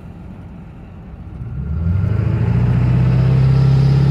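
2002 Ford F-350's 7.3 L Power Stroke turbo-diesel V8, heard from inside the cab, pulling hard under acceleration: about one and a half seconds in it gets much louder and settles into a strong, steady deep drone with a faint rising turbo whistle. It picks up speed with no exhaust-leak hiss, now that the leaking up pipes have been replaced.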